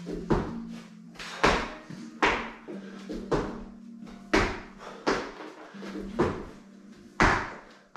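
Repeated thuds of burpees on rubber gym mats, about one a second: hands slapping down, feet kicking back and landing from the jump.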